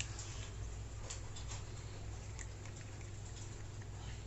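Faint light clicks and rustles of a plastic rotor blade being handled and pushed onto a small motor's shaft, over a steady low hum.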